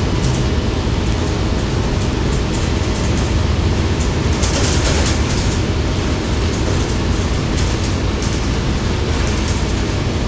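Interior ride noise of a 2020 Gillig BRT 40-foot transit bus under way: a steady engine and road rumble, with a brief clatter about four and a half seconds in.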